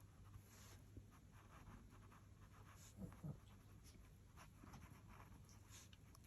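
Faint scratchy strokes of a paintbrush working watercolour on paper, with two soft knocks about three seconds in.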